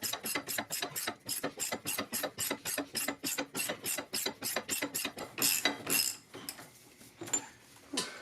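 Hand ratchet wrench clicking quickly and evenly, about five clicks a second, as a freed-up nut is wound off. The clicking stops about five seconds in, followed by a couple of louder metallic rattles and a few faint ticks.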